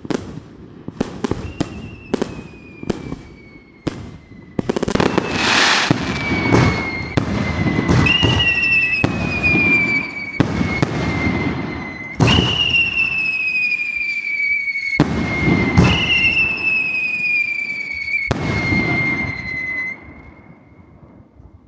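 Fireworks going off: a quick run of sharp bangs, a crackling burst about five seconds in, then several long, high whistles that glide slowly downward, each one started by a sharp bang. The show dies away near the end.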